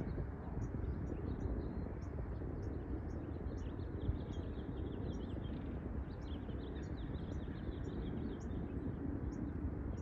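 Small birds chirping over and over, high and quick, above a steady low rumble of outdoor background noise.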